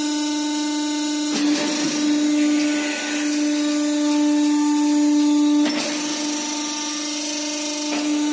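Gas-cylinder homogenizer running after start: a steady, even-pitched motor whine with a few short knocks, about a second and a half in, near the middle and near the end.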